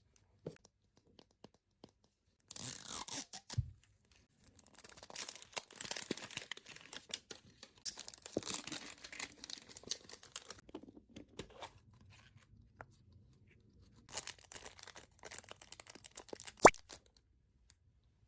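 Packaging torn open and crinkled by hand in three stretches, the longest lasting about six seconds, with a sharp click near the end.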